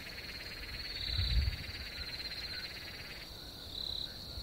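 Night-time chorus of calling insects and frogs: a dense high buzzing trill that drops out about three seconds in, with short high chirps repeating every couple of seconds. A brief low rumble comes about a second in.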